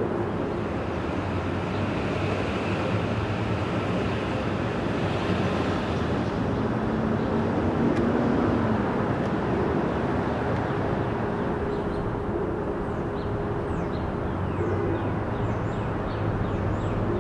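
Steady street-traffic noise, with a vehicle swelling louder as it passes about halfway through.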